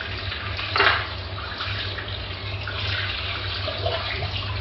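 Kitchen tap running into a stone sink while hands rinse small computer parts under the stream, with one brief louder sound about a second in.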